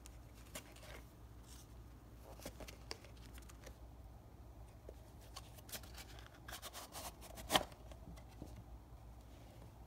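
Faint handling of a cardboard watch box: scattered light rubbing, scraping and tapping as it is turned in the hand, with a sharper click about three-quarters of the way through as the box is opened.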